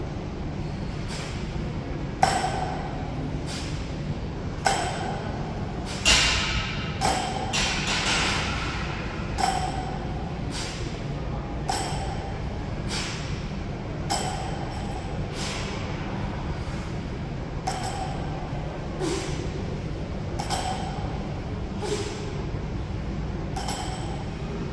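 A 295-pound barbell with bumper plates hitting the rubber gym floor on each deadlift rep: a thump with a short metallic clank about every two seconds, over a steady low hum.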